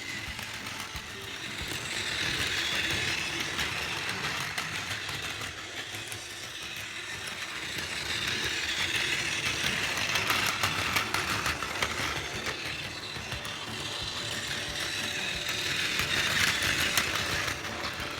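Battery-powered Plarail toy train, a 923 Doctor Yellow with lights, running on plastic track: a small electric motor's whine with a stream of fine clicks from the wheels and track joints. It grows louder and fades three times as it passes close by.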